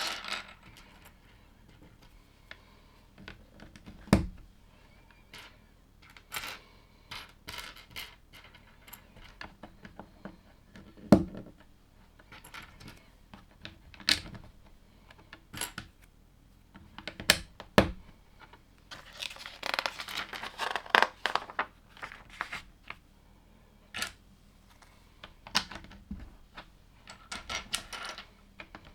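LEGO plastic pieces being handled, set down and pressed together: scattered sharp clicks and taps, with a stretch of pieces rattling and shuffling about two-thirds of the way through.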